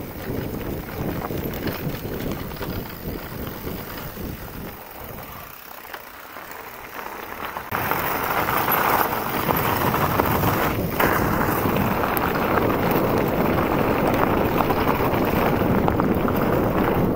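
Mountain bike descending a dirt and gravel trail: tyre and trail rumble with wind buffeting the microphone, a steady rushing noise that gets louder and rougher about eight seconds in.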